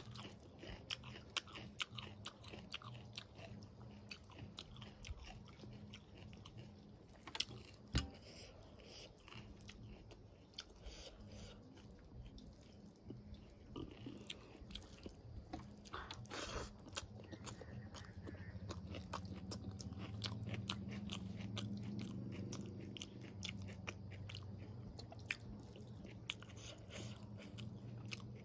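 Close-up sounds of a person chewing and eating rice and vegetable curry by hand, with many small wet mouth clicks and a few sharper clicks. A steady low hum runs underneath and grows a little louder in the second half.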